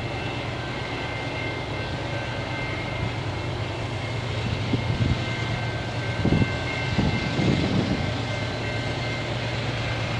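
Steady low rumble of approaching diesel freight locomotives heard from a distance, with a few louder irregular swells of low rumble around the middle.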